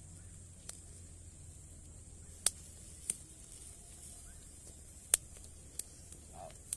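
Open wood fire crackling under fish on a wire grill: a handful of sharp, separate pops over a faint steady hiss.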